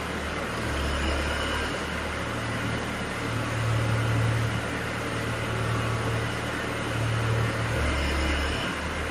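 Integrated DTH drilling rig running: a steady engine drone whose low hum steps between a lower and a higher note every few seconds as the load changes.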